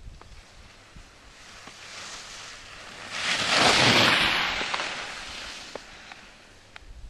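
Skis scraping and carving over packed snow as a skier passes close by: a rushing scrape that swells to its loudest about three and a half seconds in, then fades away over the next couple of seconds.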